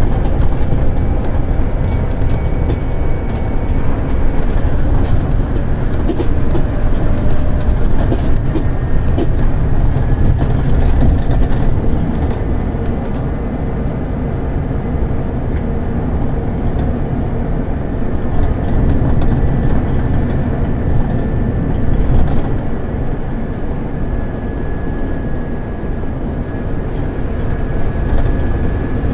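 Scania DC9 five-cylinder diesel engine of a bus heard from inside the passenger cabin, running steadily and loud under load on a climb, with small rattles from the interior.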